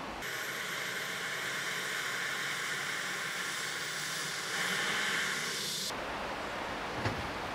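Steady hissing whine of a helicopter's turbine engine running on the ground, swelling briefly near the end before it cuts off abruptly. After the cut come soft outdoor noise and a single sharp click.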